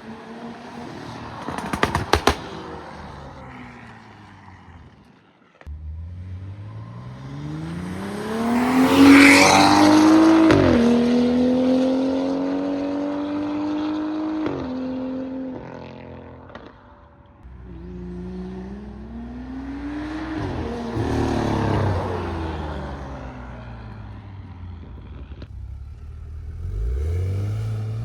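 BMW 535i's turbocharged N55 straight-six through an aftermarket valved exhaust, pulling hard with the pitch climbing, shifting up about ten seconds in and again a few seconds later, then easing off before two more shorter pulls. A quick crackle of exhaust pops about two seconds in.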